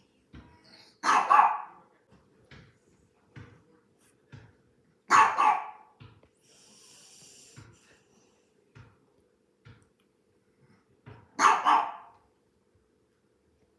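Small dog in a pet carrier barking to be let out: three loud double barks, about a second in, about five seconds in and near the end, with fainter short sounds between.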